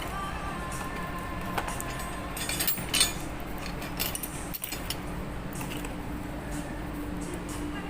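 Metal hand tools and steel parts clinking and knocking a few times, loudest about three seconds in, over a steady low machinery hum.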